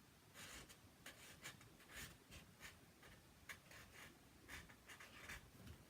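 Faint, irregular scratching strokes of a pen writing on a label.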